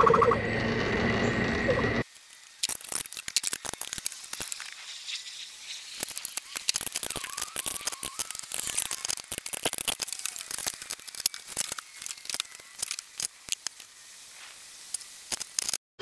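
Two on-board air compressors running steadily while building air pressure, cut off sharply about two seconds in. Then light irregular clicking and rattling, like hands working a fitting.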